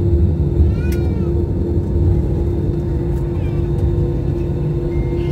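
Airliner cabin noise during the landing roll: a steady low rumble from the engines and wheels on the runway, with a faint broken hum. About a second in, a short high rising-and-falling squeal cuts through once.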